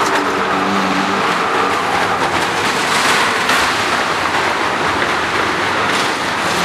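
A vehicle engine running steadily in a wooden wall-of-death pit, with a dense wash of fairground noise around it. A low, even hum is plainest in the first second or so.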